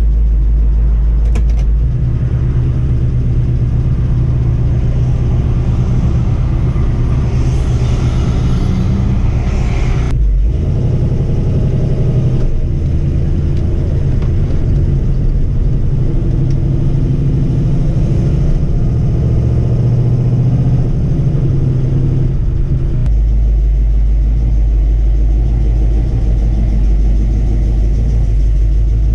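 Ford XC Falcon's 351 Cleveland V8 running steadily as the car is driven, a loud low engine rumble. The sound changes abruptly about ten seconds in and again near the end, where one stretch of driving cuts to another.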